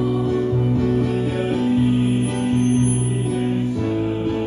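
Music with guitar and held chords that change every second or so.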